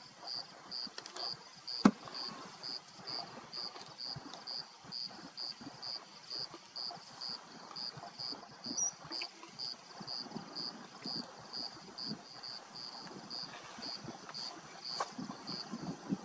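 Lion chewing and crunching on a warthog carcass, a soft irregular crackle, over an insect chirping in an even high-pitched rhythm of about two and a half chirps a second. A single sharp crack stands out about two seconds in.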